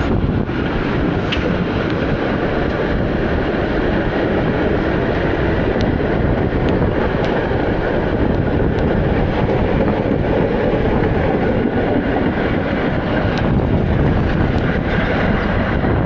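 Konstal 102Na articulated tram running along the track, heard from on board: a steady rumble of wheels on rails with a few faint clicks.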